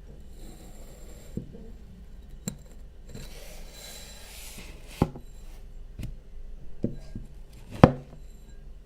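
Kinetic sand being scraped and cut with a hard tool: two stretches of gritty scraping, and a handful of sharp clicks or taps, the loudest near the end.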